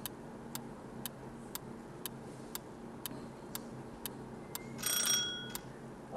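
Quiz countdown-timer sound effect: a clock ticking steadily about twice a second, with a short bright ringing chime about five seconds in as time runs out.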